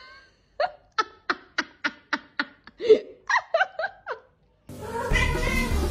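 A person laughing in a run of short, evenly spaced bursts, about three to four a second, then a few higher laughs. Music starts near the end.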